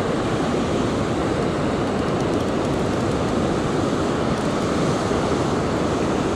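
Small, flat surf washing up the sandy shore around the wader's feet: a steady rushing wash of waves with some wind buffeting the microphone.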